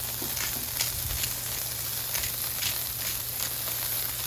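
Smashed beef burger patties sizzling on a Blackstone flat-top griddle: a steady hiss with scattered crackling pops.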